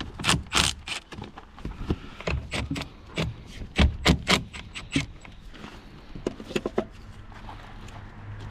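Metal tools clinking and knocking against the battery and its clamps, a string of irregular sharp clicks, while the car battery is disconnected and taken out.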